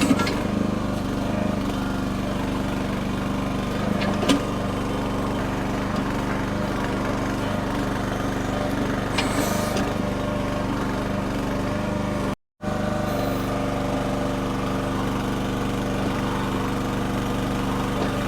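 Small engine of a mini backhoe running steadily while the bucket digs in rocky ground, with a couple of brief knocks.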